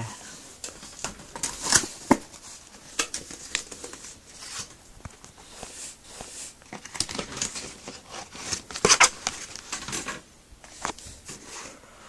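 Cardboard keyboard box being opened and handled: the flaps scraping and rustling, with irregular sharp clicks and knocks, loudest about two seconds in and again about nine seconds in.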